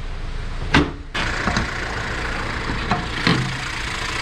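A single thump a little under a second in, then the Fiat Toro's 1.3 turbo flex four-cylinder engine starts and settles into a steady idle.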